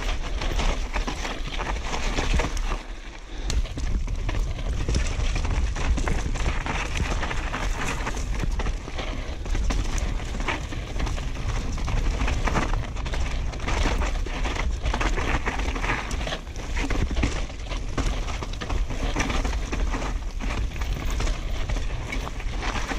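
Mountain bike descending a rough dirt downhill trail, heard from the rider's own camera: tyres rolling over dirt and roots, frequent knocks and rattles from the bike's frame and chain, and wind rumbling on the microphone. The noise eases briefly about three seconds in.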